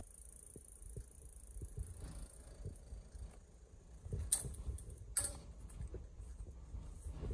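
Ticket vending machine printing and pushing out a bus ticket: faint mechanical ticking and knocking, then two sharp clicks about a second apart just past the middle as the ticket is cut and fed out of the slot.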